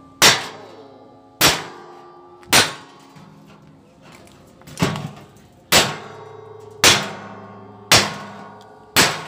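A 2.5 kg hand hammer striking a long steel blade held against a steel oil drum, cutting the drum open by hand: eight sharp metallic clangs, mostly about a second apart with a longer pause after the third, each followed by ringing from the drum.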